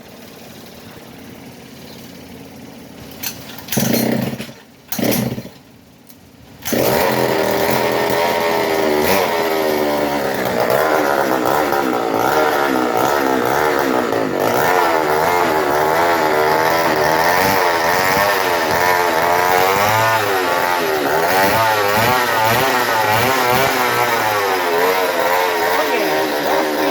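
Pocket bike's 50cc two-stroke engine. After two short bursts it runs loudly from about seven seconds in, its pitch swinging up and down as the throttle is blipped.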